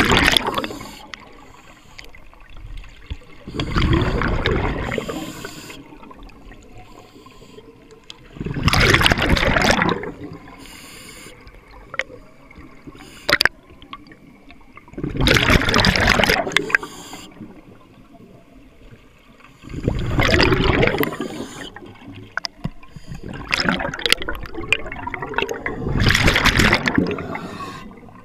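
Scuba diver breathing on an open-circuit regulator, heard underwater: a gush of bubbles from the exhaust on each exhalation, six times about five seconds apart, with quieter breathing noise between.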